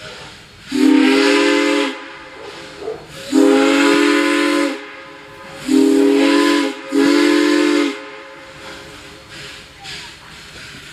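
Steam locomotive's chime whistle blown four times as the train approaches. Each blast is a steady chord of several notes lasting about a second, the first two a little longer than the last two, with a faint hiss between blasts.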